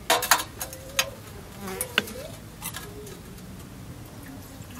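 Tea things being handled: several sharp metal and glass clinks in the first two seconds, with a faint wavering buzz around two seconds in.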